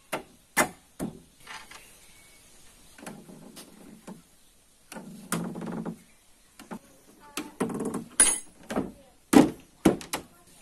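Heavy timber boat frame being set into a wooden hull: a string of sharp wooden knocks and thunks as the pieces bump together. The knocks come thickest and loudest near the end.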